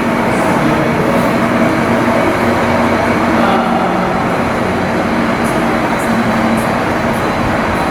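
Steady, loud drone of running machinery with a constant low hum, and a few faint high clicks in the second half.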